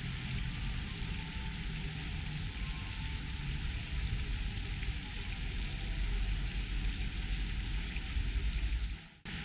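Steady outdoor background noise: an even hiss with a low, fluctuating rumble underneath. It breaks off briefly about nine seconds in, then carries on.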